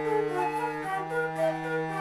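Two wooden keyed flutes playing interweaving melodic lines in classical chamber style over a sustained bass note from a cello.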